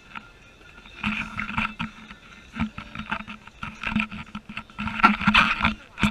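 Ski boat under way on choppy water: a low steady engine hum under irregular knocks and splashes as the hull hits the chop, starting about a second in.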